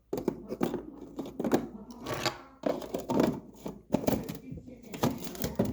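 Food packages being handled and moved about inside a fridge compartment: irregular rustling, crinkling and light knocking.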